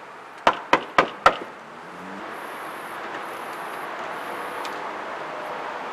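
Four quick knuckle knocks on a front door, about four a second, followed by a steady background hiss.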